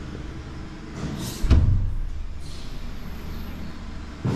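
A wooden door, not yet fitted with its doorknob, pushed shut: one heavy thud about a second and a half in, with a lighter knock near the end.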